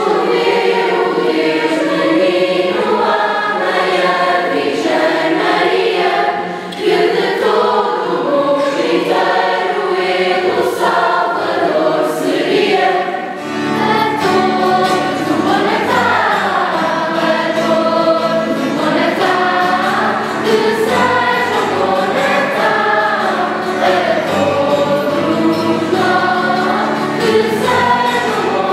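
Background music of a choir singing. About halfway through, a low sustained accompaniment comes in under the voices.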